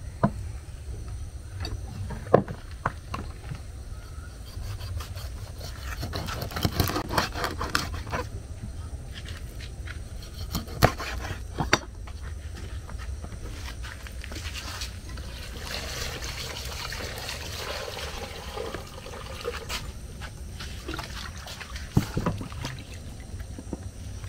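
Kitchen handling of fresh mackerel: sharp knocks of fish and dishes set down on a wooden cutting board, then water sloshing and trickling as the fish is washed by hand in a plastic bowl.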